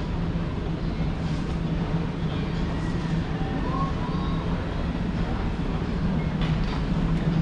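A steady low mechanical hum over even rumbling noise, with a few faint short tones in the middle.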